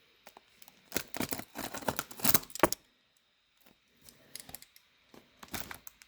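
A knife cutting into a taped, well-packed parcel, with scraping and sharp clicks in two spells and a short pause between them.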